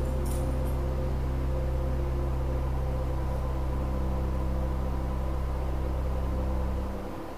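Church organ holding a low sustained chord that is released about seven seconds in.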